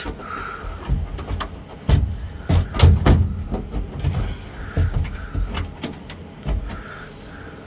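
Irregular knocks, clunks and clicks of parts being pushed and fitted into a car's dashboard and interior, the heaviest clunks about two to three seconds in.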